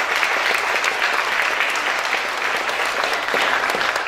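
Congregation applauding: a dense, steady clapping of many hands.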